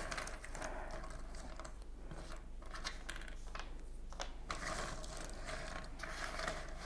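Loose cardboard jigsaw puzzle pieces clicking and rattling as hands rummage through them in a tray and set a few down on the table.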